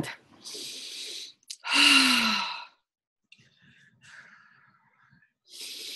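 A woman taking a deep breath: a hissing inhale, then a loud sigh out that falls in pitch. Near the end she draws in a second breath.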